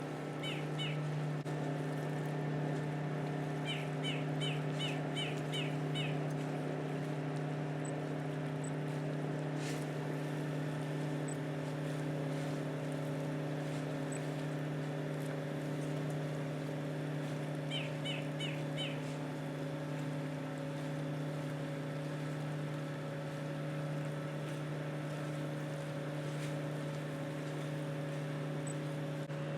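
Steady low drone of a large ship's engines and machinery, with three short bursts of rapid high bird chirps over it.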